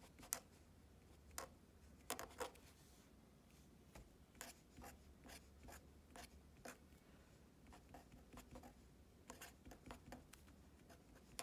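Felt-tip marker writing numbers and brackets on a paper worksheet: a series of short, faint scratching strokes.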